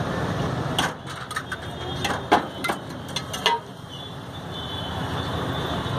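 A metal ladle clinking and knocking against a steel pot several times while serving bhaji, one knock ringing briefly. Steady street noise runs underneath.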